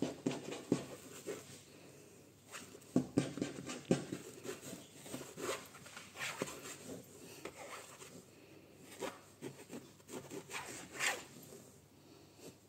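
Bengal cat grooming at close range, licking its paw and rubbing against a fabric cushion: a run of irregular soft clicks and rasps.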